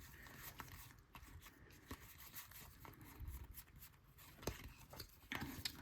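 Faint, scattered soft clicks and rustles of baseball trading cards being handled and flipped through, over quiet room tone.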